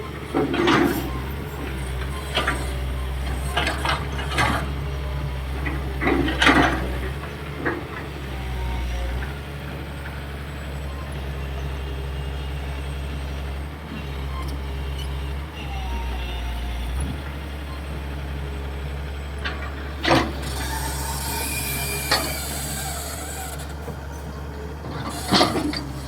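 Hitachi EX220-3 long-reach excavator's diesel engine running steadily under hydraulic load, with several sharp metallic clanks from the boom and bucket, most in the first seven seconds. About twenty seconds in, a hiss lasts about three seconds.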